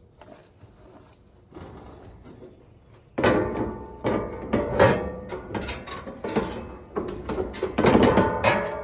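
Wire fan grille and sheet-metal top of a Carrier Infinity heat pump's outdoor unit clanking and rattling as it is pried loose and lifted off with the condenser fan still attached, starting about three seconds in.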